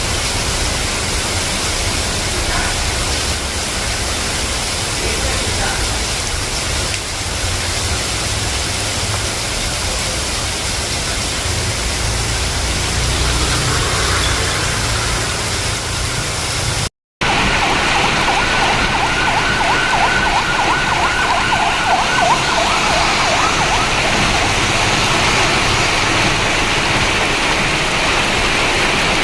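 Heavy rain pouring down in a steady hiss, with a low rumble under it in the first half. The sound cuts out briefly about halfway through. When it returns, the rain goes on, and a pulsing tone sounds over it for several seconds.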